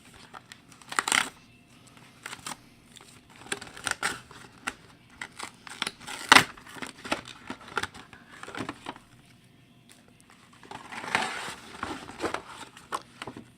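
Packaging crinkling and crackling in irregular bursts as an item is unwrapped by hand, with one sharp snap about six seconds in.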